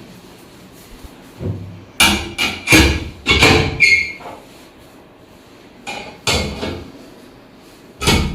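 A series of sharp knocks during a chiropractic treatment on the table: a quick run of five strikes about two seconds in, then two more around six seconds and one more near the end.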